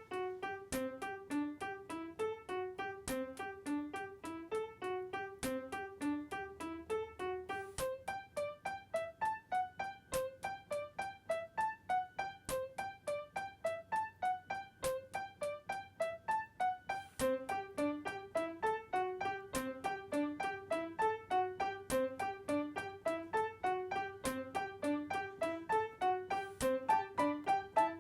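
Background piano music: a steady run of evenly paced single notes, about three a second.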